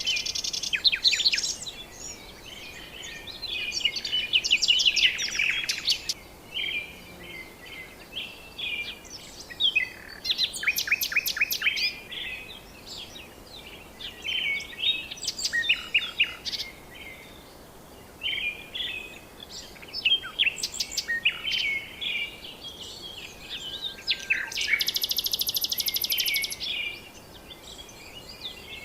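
Several wild birds calling in turn: varied chirps, whistles and short trills, with a rapid buzzing trill lasting about two seconds near the end.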